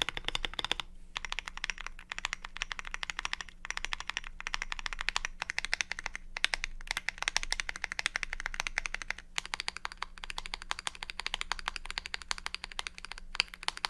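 Gasket-mounted GMMK Pro mechanical keyboard with Boba U4T tactile switches, PBT keycaps and an aluminum plate, typed on quickly and continuously. The stream of key clicks is broken by a few brief pauses.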